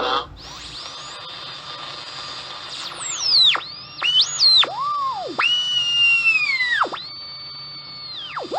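A radio being tuned across the dial: a steady static hiss with whistling tones that swoop down and up in pitch as the tuning passes over stations. From about three seconds in there are several sweeps in a row, some held briefly as a slowly falling whistle.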